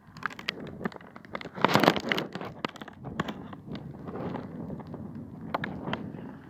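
Dorper sheep grazing close by: irregular crisp tearing and crunching of grass, with one louder rustling burst about two seconds in.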